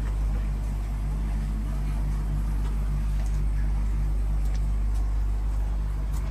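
Koi pond's spillway waterfall and churning upwelling, heard as a steady low rumble with a hum, muffled through window glass.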